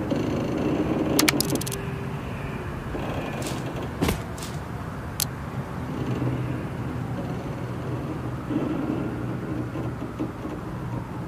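Steady low rumble of vehicles, with several sharp clicks and a clank between about one and five seconds in.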